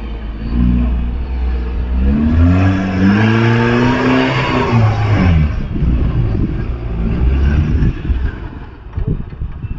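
Off-road vehicle engine revving hard under load, its pitch climbing through the middle and dropping about five and a half seconds in, then running lower and rougher.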